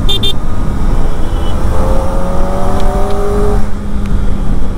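Kawasaki Ninja ZX-4RR's inline-four engine running under loud wind and road rumble. Its pitch climbs steadily for about two seconds as it accelerates, then drops off. A brief high beep sounds right at the start.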